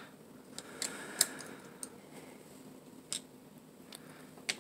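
A few light, sharp clicks and taps of small metal knife parts being handled and fitted together as an out-the-front knife is reassembled, the loudest about a second in, at about three seconds and near the end.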